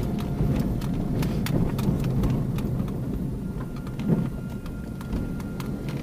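Road noise inside a car's cabin on an unpaved gravel road: a steady low rumble of tyres and suspension, with irregular clicks and knocks from gravel and bumps, and a heavier thump about four seconds in.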